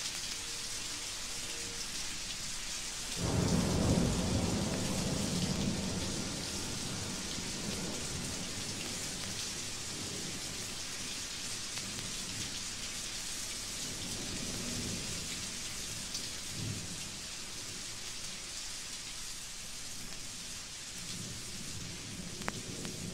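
Steady rain on a thunderstorm field recording from a 1956 vinyl record, with a clap of thunder about three seconds in whose low rumble rolls off over several seconds.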